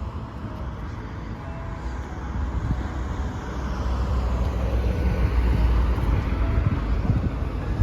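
Motor vehicle running on the road: a low engine and tyre rumble that swells louder from about two seconds in.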